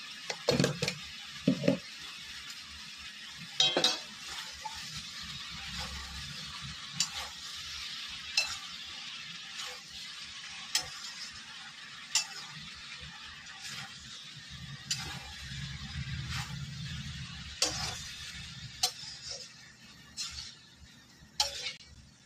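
Malabar spinach with pumpkin and potato cooking in a metal kadai, sizzling steadily as it is stirred with a spatula. The spatula scrapes and clinks against the pan now and then, and the sizzling dies down near the end.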